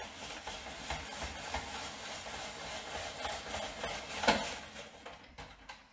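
Hand-cranked Paderno World Cuisine spiralizer cutting a zucchini into noodles: a steady scraping, grinding noise of the blade shaving the vegetable, with a sharp click about four seconds in, fading out near the end.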